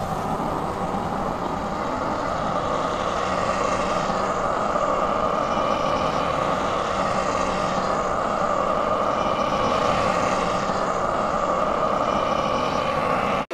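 A steady vehicle engine drone that cuts off abruptly near the end.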